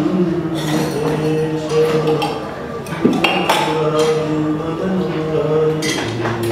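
Devotional music of long held, chant-like notes that step from one pitch to the next, with several sharp clinks of steel pots and vessels being handled.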